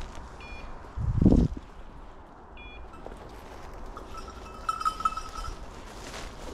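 Hunting dog's bell jingling with an uneven ringing that comes and goes from about four seconds in, after two short high clinks earlier on. A brief low rustle about a second in is the loudest thing.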